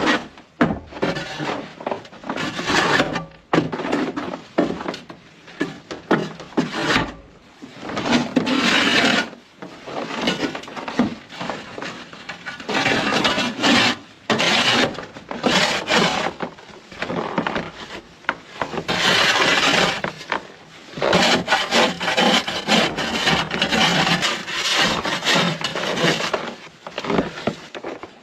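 Wood being worked by hand: a run of irregular rasping, scraping strokes, some about a second long, others short and quick.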